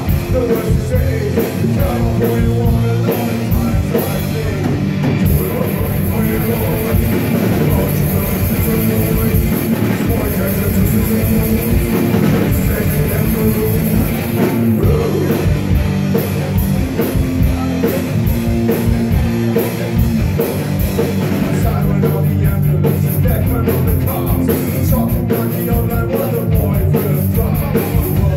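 Stoner rock band playing live at full volume: electric guitars and a drum kit.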